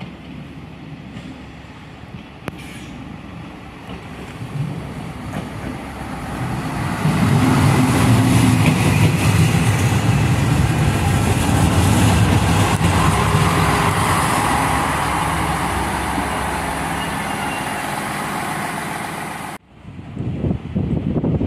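SNCF X 73500 diesel railcar approaching and running in alongside the platform. Its engine hum and running noise grow louder for a few seconds, then hold steady until they cut off abruptly near the end, when wind on the microphone takes over.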